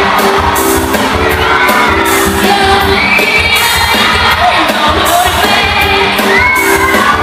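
Live pop music with a steady beat and held instrumental notes, with singing, under a crowd of children screaming and cheering.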